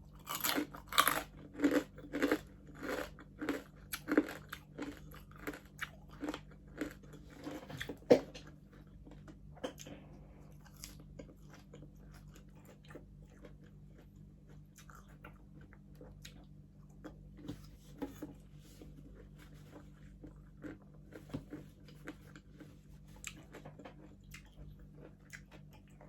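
Close-up chewing of crispy pata, deep-fried pork knuckle: loud crunches of the crisp skin, about one and a half a second, for the first eight seconds, then quieter, sparser chewing. A steady low hum runs underneath.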